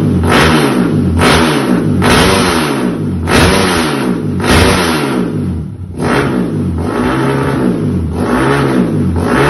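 A bored-up 240cc Kawasaki KLX single-cylinder four-stroke dirt-bike engine is revved in repeated throttle blips, about one a second. Each blip rises and falls in pitch, with a short drop back near the middle.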